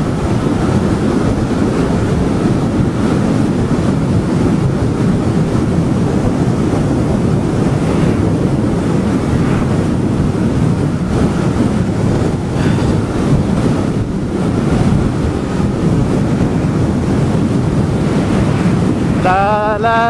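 Loud, steady wind rush buffeting the microphone of a camera on an electric bike riding along a road.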